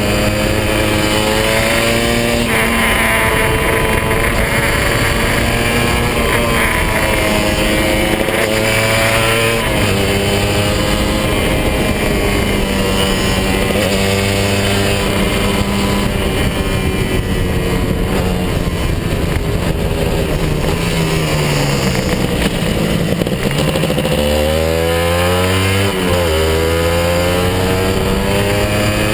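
Kawasaki 150 RR's two-stroke single-cylinder engine running under way, its pitch rising and falling as the throttle is worked through the bends. Near the end the revs drop, then climb sharply twice.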